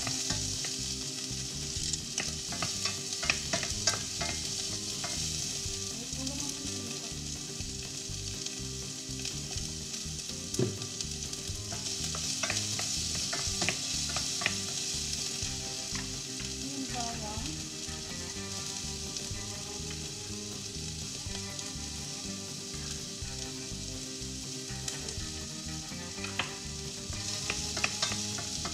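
White onion sautéing in a pan, a steady sizzle that swells around the middle and again near the end, with a utensil stirring and tapping against the pan now and then.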